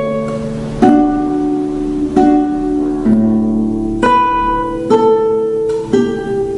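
Acoustic guitar playing a slow run of plucked chords meant to sound like chimes, six of them about a second apart, each left to ring and fade before the next.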